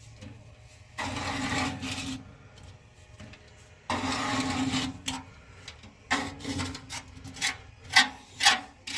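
A scraper scraping caked grease and gunk off the floor of an Oklahoma Joe's Highlander offset smoker's cooking chamber. Two long strokes of about a second each, then a run of quicker, shorter strokes near the end.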